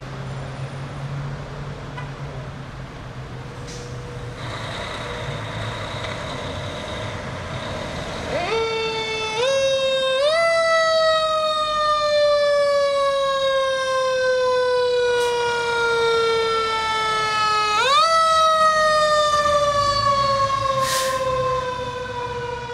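Siren on a 2018 Pierce Arrow XT fire engine, heard over the truck's engine. After several seconds of engine rumble, the siren winds up in three quick steps about eight seconds in and then slowly winds down. It is wound up again near the end and falls slowly once more.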